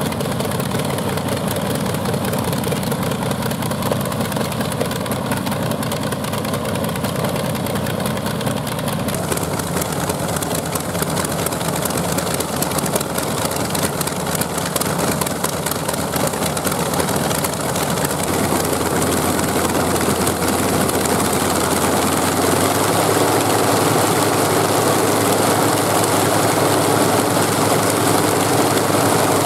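Wright nine-cylinder radial aero engine running on a test stand, turning a two-blade propeller; the steady engine note grows louder in the second half.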